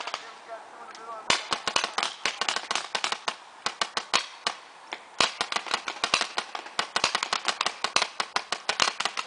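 Rapid strings of sharp shots from several skirmish-game guns firing at once. The firing thins out briefly and comes in dense bursts from about a second in and again from about five seconds in.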